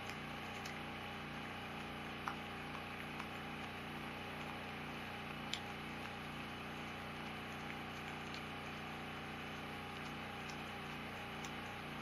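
Steady low hum of room tone with a few faint sharp clicks of a small hand tool against the metal power valve, about two seconds in and again about halfway through.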